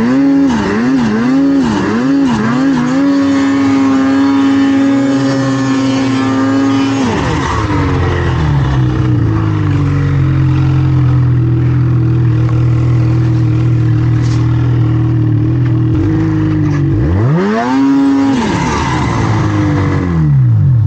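Snowmobile engine working hard in deep snow: the throttle pulsed about twice a second at first, then held at high revs, easing to a lower steady pitch in the middle. Near the end the revs dip, climb back up, then fall away sharply.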